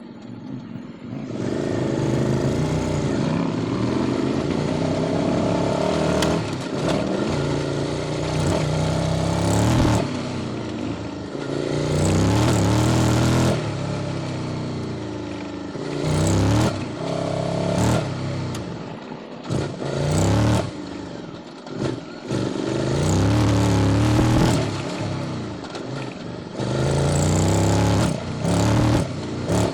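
QJ Motors SVT650X V-twin through an Arrow Racetech exhaust with custom headers, ridden hard. The engine note climbs in pitch under throttle, then drops off sharply, over and over, with brief breaks as the throttle shuts or gears change.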